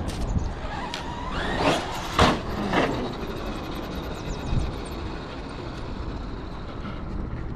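Traxxas X-Maxx electric RC monster truck's brushless motor whining in short throttle bursts, its pitch sweeping up and falling back several times in the first three seconds, then running more evenly over a steady low rumble.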